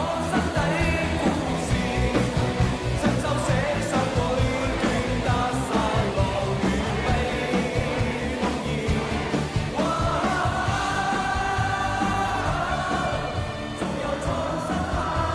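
Rock music with singing over a steady drum beat; a long sung note is held about ten seconds in.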